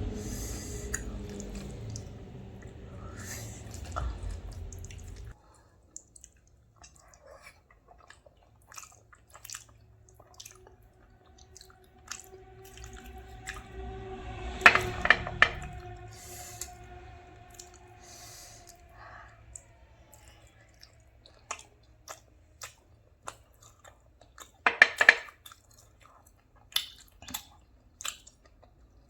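Close-miked chewing and wet mouth sounds of someone eating, with scattered clicks and two louder bursts of chewing about fifteen and twenty-five seconds in. A low hum underneath cuts off about five seconds in.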